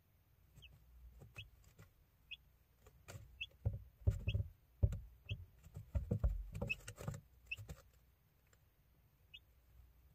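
A young chick peeping: about ten short, high peeps, each rising slightly, spaced roughly a second apart. In the middle comes a run of soft thumps and rustling, the loudest part.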